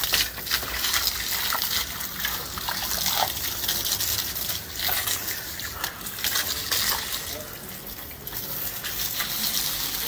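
Water from a garden hose spraying and splashing onto tiled steps and floor, a hiss that swells and dips.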